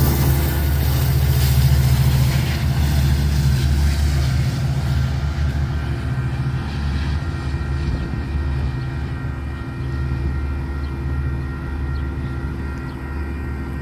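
Metra F59PHI diesel locomotive and its train moving away, a steady low engine drone with thin steady tones above it, slowly fading.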